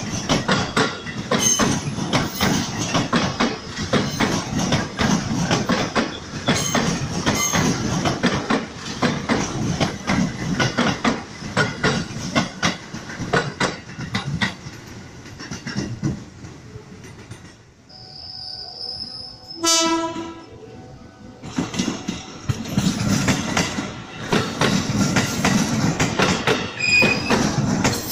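Ex-JR East 205 series electric commuter trains running past, with steady wheel clatter over the rail joints. About two-thirds through, after a brief lull, a single short train horn blast sounds, and then another 205 series train passes close by with the same clatter.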